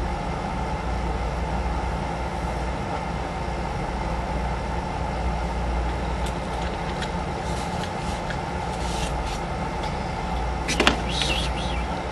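Steady low background rumble with a few light clicks of plastic puzzle-cube pieces being fitted together; the sharpest click comes near the end.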